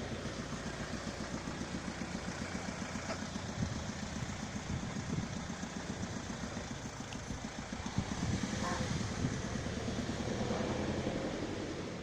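A motor vehicle engine idling steadily, with a low, rapid pulsing.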